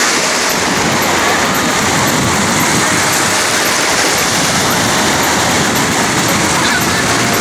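Small sea waves breaking and washing through the shallows, a steady rushing surf noise without pause.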